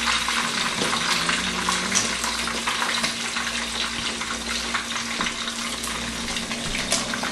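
Pieces of red snapper frying in hot oil in a wok: a steady sizzling hiss with fine crackles.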